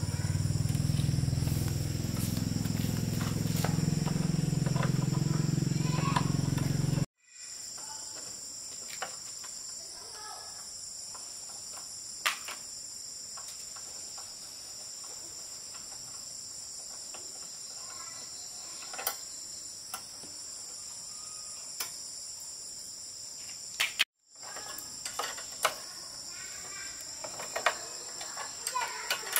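A loud low steady rumble, then a sudden cut about seven seconds in to a steady high-pitched insect chorus with scattered faint clicks and knocks.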